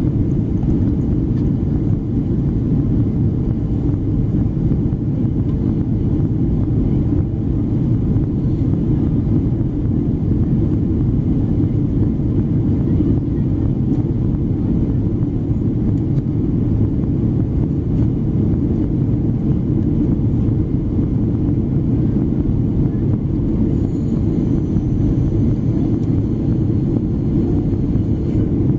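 Steady cabin drone of a Boeing 777-200ER in its climb after takeoff, heard from a window seat beside the wing: the Rolls-Royce Trent 800 engines and rushing airflow, a deep, even rumble. Faint high tones come in briefly near the end.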